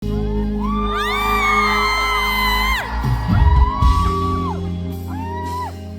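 Music with steady sustained bass notes, overlaid by loud rising whoops and screams from several voices, the longest in the first half and shorter ones near the end.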